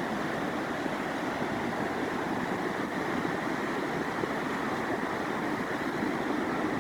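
The flooded James River rushing past, a steady, even roar of fast-moving water.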